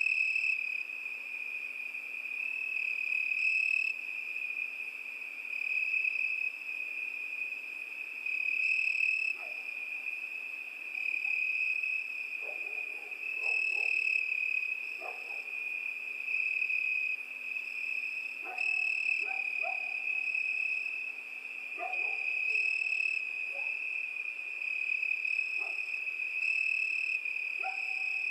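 Crickets chirping, a steady high-pitched trill. From about ten seconds in, short lower-pitched calls from another animal come and go over it.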